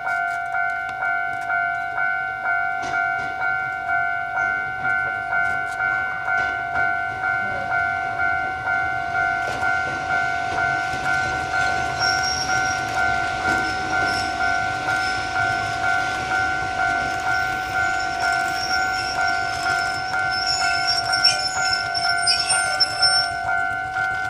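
Railway level-crossing warning bell ringing steadily as a two-tone electronic clang about twice a second while a train passes. From about halfway a thin high wheel squeal and rail clacks join in, with a few sharp knocks near the end.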